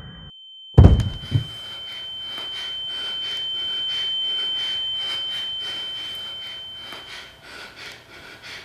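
A loud gunshot-like bang about a second in, with a weaker knock just after, then a single high steady ringing tone, the ear-ringing effect laid over gunfire in film, which swells and then stops shortly before the end.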